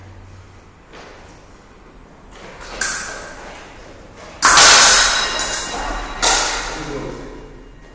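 Fencers' feet stamping and landing hard on the floor during a fencing exchange: sharp thuds that echo in the hall. The loudest comes about four and a half seconds in, with another just after six seconds and smaller ones before.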